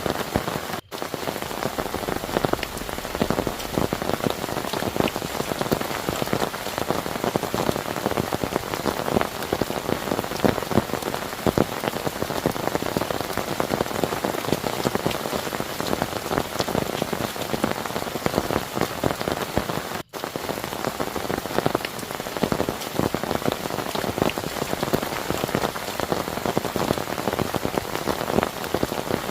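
Heavy rain falling steadily, with a dense patter of individual drops striking a surface close by.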